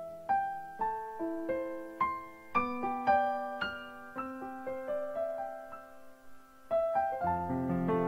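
Background piano music: a slow melody of single struck notes that ring and fade, with fuller low chords coming in about seven seconds in.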